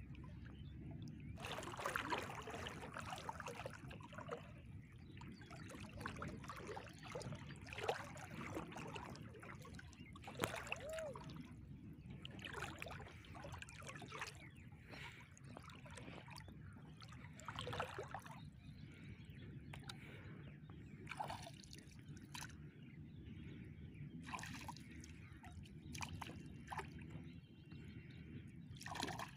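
Water dripping and splashing irregularly as a wet fishing net is lifted and worked through the water by a person wading in a river, over a steady low background noise.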